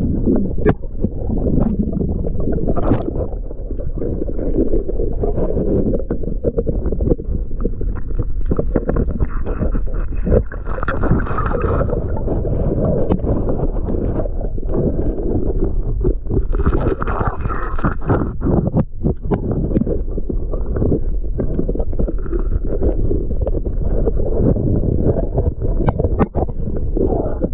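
Underwater, a diver's pry tool scraping and knocking at old aluminum anodes on an outboard motor bracket: many sharp clicks and knocks over a steady rumble of water, with two louder hissing surges about six seconds apart.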